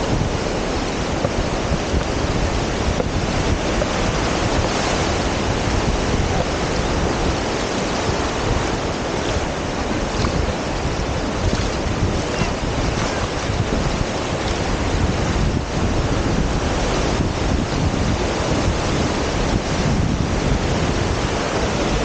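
Surf breaking and washing up the beach in a steady rush, with wind buffeting the microphone.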